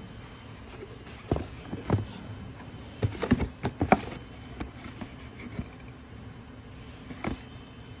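Cardboard product boxes being handled and set down on other boxes: a string of short knocks and scuffs, busiest between about three and four seconds in, over a faint steady hum.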